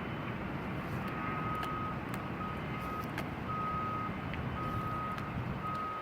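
A vehicle's reversing alarm beeping at one steady pitch, about once a second, starting about a second in, over a steady low rumble. A few faint sharp clicks are scattered through.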